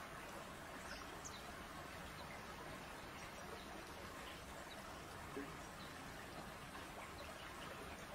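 Faint, steady outdoor background hiss with a few faint, short high chirps in the first couple of seconds.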